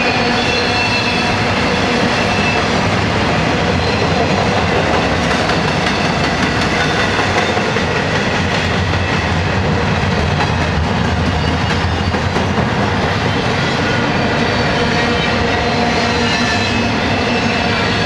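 Intermodal well cars of a long freight train rolling past: a steady, loud rumble and clatter of steel wheels on the rails.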